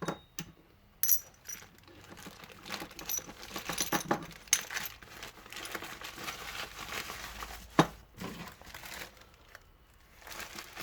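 Small loose metal parts clinking and clacking in the hand, with a few sharp clicks, over the rustle of plastic packaging being handled.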